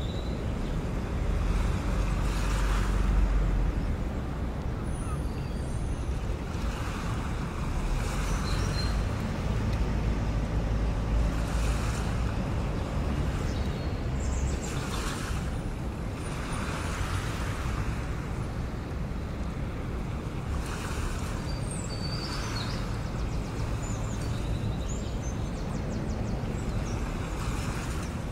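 Steady ambience of wind and sea surf, with a low rumble and a hiss that swells every few seconds as waves wash in.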